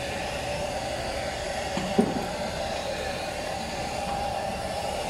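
A machine running with a steady drone, with a brief knock about two seconds in.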